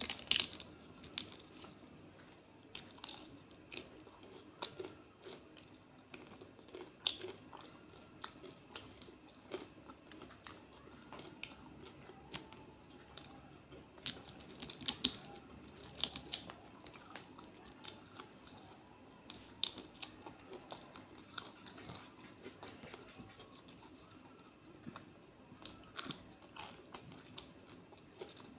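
A person chewing mouthfuls of shrimp masala curry and rice eaten by hand, with irregular sharp wet clicks and smacks.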